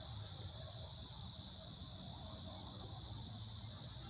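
A steady, high-pitched chorus of insects droning without a break, with a faint low hum underneath.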